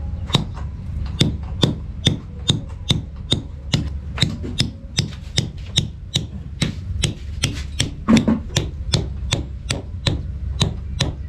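A hammer striking a thin steel spike held against a brick wall, likely a thick nail being driven into the mortar. The blows are steady, about two to three a second, over a low background rumble.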